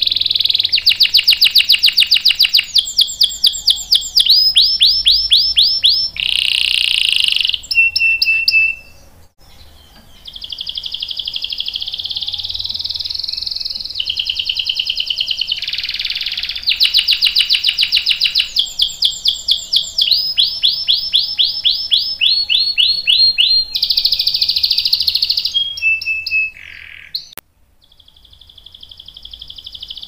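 Canary singing a long song of rolling trills: runs of fast repeated notes, each run changing to a new trill at a different speed, with short breaks about nine and twenty-seven seconds in.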